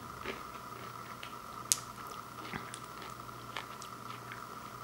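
Small clicks and light rustles of hands handling candy-coated Caramel M&M's in the palm, with one sharper click about a third of the way in, over a steady electrical hum.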